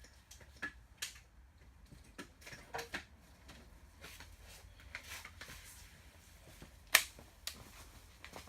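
Scattered light clicks and knocks of hand tools and small parts being handled, with one sharper, louder click about seven seconds in.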